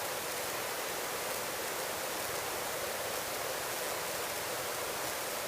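Steady, even hiss of a helicopter in flight, heard through the cockpit intercom, with the engine and rotor noise reduced to a smooth rushing sound.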